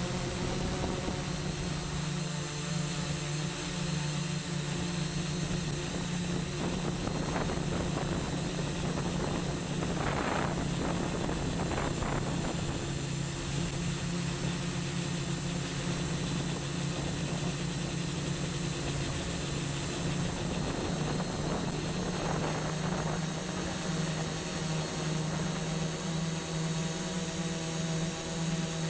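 Multirotor drone's eight brushless motors and propellers, heard close from the onboard camera, running with a steady hum and a thin high whine. A few brief gusts of wind noise come through partway in and again later.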